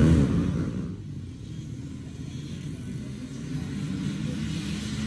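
Dirt bike engines revving hard as the bikes pull away from a race start, fading over about a second into a low, steady rumble of many motorcycle engines.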